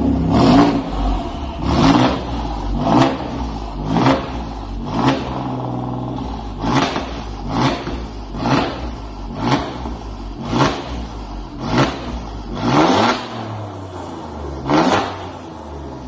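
Alfa Romeo Giulia Quadrifoglio's twin-turbo V6 revved while the car stands still. About a dozen quick throttle blips come roughly one a second through the quad exhaust, each a sharp rise and fall in pitch, with the engine idling between them and two short pauses.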